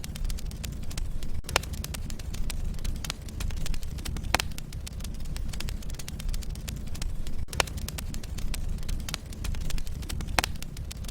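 Wood logs burning in a fireplace: a steady low rumble of flame with constant small crackles and four sharper pops about three seconds apart.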